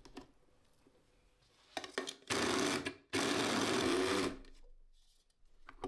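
Electric press-top mini chopper mincing chunks of raw pork belly, run in two pulses: a short one about two seconds in, then a longer one of a little over a second that winds down. A few light clicks come just before the first pulse.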